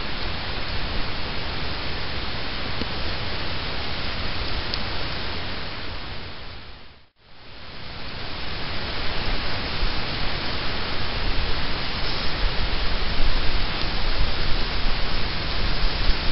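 Steady rushing wind noise on the microphone, heaviest in the low rumble. It dips to silence for a moment about seven seconds in, then comes back, with stronger low gusts near the end.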